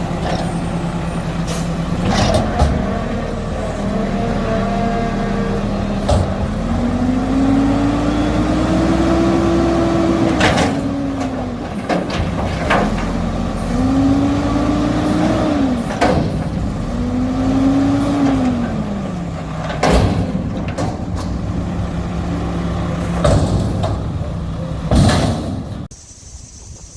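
Mack garbage truck's diesel engine running with a McNeilus front-loader body, revving up and back down three times as it drives the hydraulics, with sharp metal bangs and clanks throughout. The sound drops off abruptly near the end.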